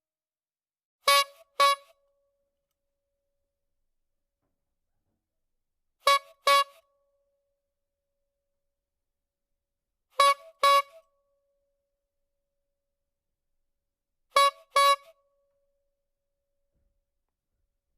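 A short comic sound effect of two quick, same-pitched notes, played four times with about four seconds of silence between each pair.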